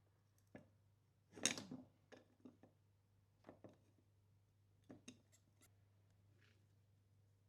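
Quiet workbench handling noises: a short scraping rasp about one and a half seconds in, then a scattering of light clicks and taps over a faint steady hum.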